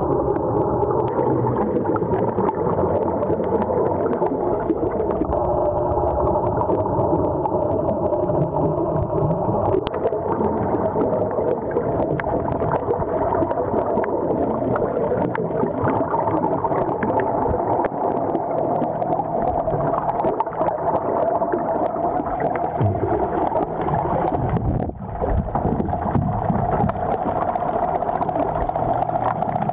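Underwater sound picked up through a camera housing: a steady hum with gurgling and ticking of air bubbles exhaled from a diver's surface-supplied regulator.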